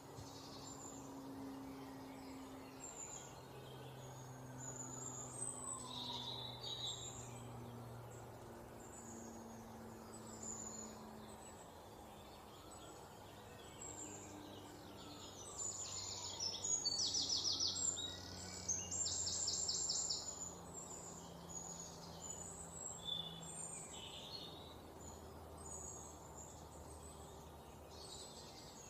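Several songbirds singing and chirping over a steady forest background, with a rapid trilled song standing out loudest twice, about two-thirds of the way through.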